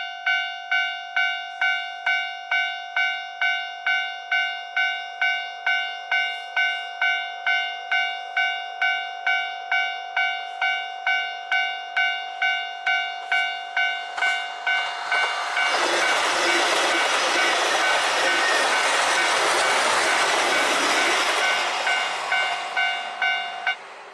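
Japanese level crossing warning bell ringing at about two strikes a second. About sixteen seconds in, a KiHa 261 series diesel express train passes over the crossing with loud, even running noise for about six seconds. The bell stops shortly before the end.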